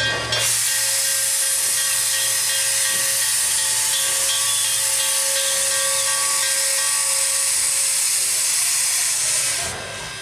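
Canadian National 7470, a 2-6-0 steam locomotive, venting steam in a loud steady hiss that cuts off suddenly near the end.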